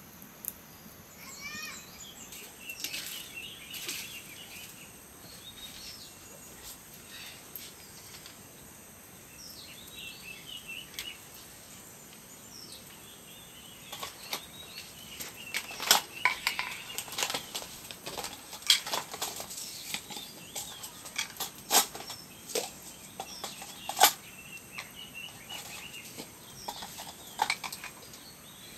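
Birds chirping and a steady high insect drone, with irregular sharp clicks and knocks, most of them about halfway through.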